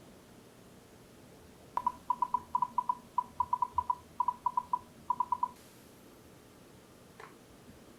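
A rapid run of short electronic beeps, all at the same pitch and grouped in threes and fours, lasting about four seconds. A faint click follows near the end.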